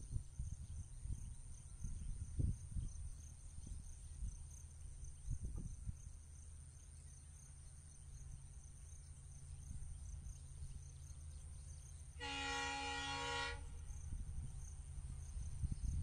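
Locomotive horn giving one blast of about a second and a half, roughly twelve seconds in, from the approaching diesel locomotive, over a low steady rumble with a few low thumps in the first few seconds.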